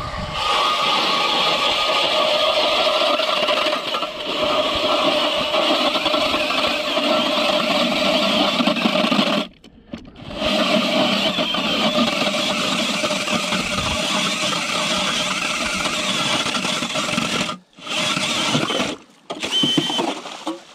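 Cordless drill turning an ice auger down through lake ice: a steady motor whine over the grinding of the cutting blades. It stops for a moment about halfway through and briefly twice more near the end.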